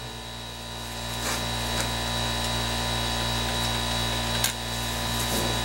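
A steel pick scraping crud out of the cast lettering of a lathe casting: a few sharp scratches and clicks over a steady electrical hum.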